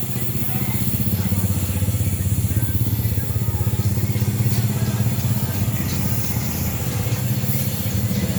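An engine or motor running steadily with a low, fast-pulsing hum.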